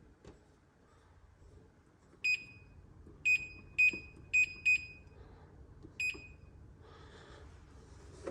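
Samsung electric range's control panel beeping as its keys are pressed to switch on the cooktop elements: six short, high beeps at uneven spacing.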